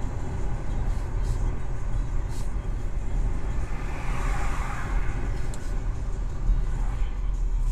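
Car driving on a road: a steady low rumble of engine and road noise, with a swell of higher noise about four seconds in.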